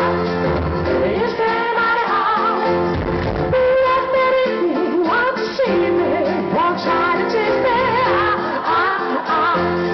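Live pop band music with singing: a wavering vocal or lead melody over sustained chords and a bass line.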